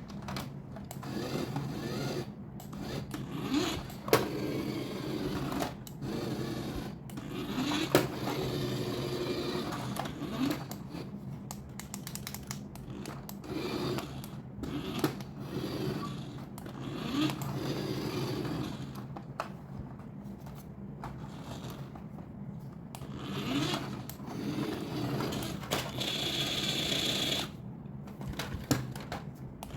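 Toys and their packaging being handled: irregular scraping and rustling with sharp clicks about 4 and 8 seconds in, over a steady low hum.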